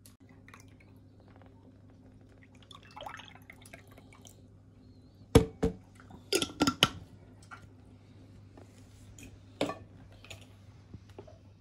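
Red juice poured from a glass bottle into cut-glass goblets, then sharp clinks and knocks of glass on the table, loudest a little past halfway with a last knock near the end. A faint steady low hum underneath.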